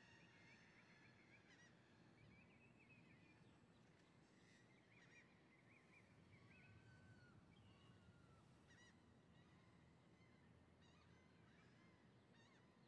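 Faint birdsong: several birds calling over one another with short, squiggly, wavering chirps and a few whistled notes, over a faint low background rumble.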